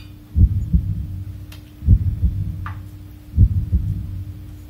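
Background music with a slow pulsing beat: a heavy low thump about every second and a half, each followed by a lighter one, over a steady held drone.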